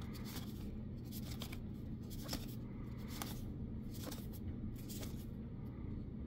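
Magic: The Gathering cards being flipped through one at a time by hand: soft card-on-card slides and flicks, about two a second, over a steady low hum.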